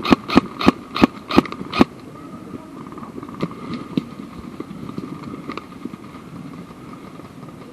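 Airsoft gun shots: a quick series of sharp cracks, about three a second, for the first two seconds, then a few fainter scattered shots.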